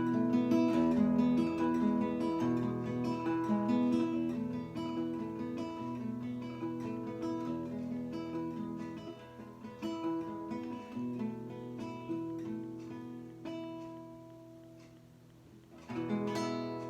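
Acoustic guitar playing a melody with chords, each plucked note dying away; the playing fades low about three seconds before the end, then a fresh chord is struck near the end.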